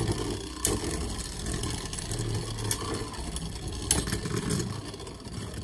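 Two Beyblade spinning tops (Vanish Fafnir and Mirage) whirring steadily as they spin against the plastic stadium floor. Several sharp clacks as the tops strike each other, the loudest about a second in and about four seconds in.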